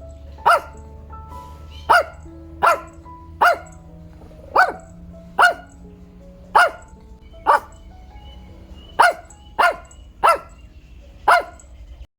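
A dog barking, about a dozen single short barks spaced roughly a second apart, over background music with held notes.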